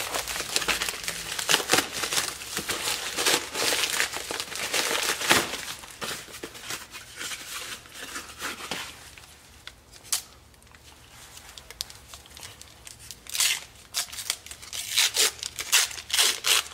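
A package being opened by hand: a mailing envelope and a small cardboard shipping box crinkling and tearing. The crackling is busiest in the first few seconds and again near the end, with a quieter stretch and a single sharp tap in the middle.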